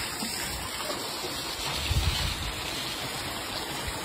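Pond aerator churning water: a steady rushing splash, with a few low swells about two seconds in.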